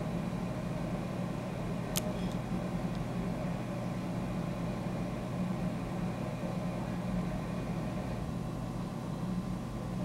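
Steady low mechanical hum, with a single sharp click about two seconds in.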